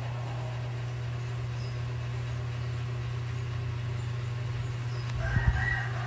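NSS 700 mm four-blade hanging ceiling fan running steadily, a low motor hum under an even rush of air. Near the end a brief pitched call and a couple of low knocks sound over it.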